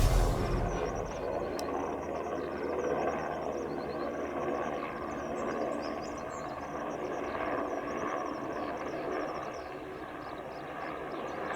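Steady, distant aircraft engine drone, with short high chirps repeating over it throughout.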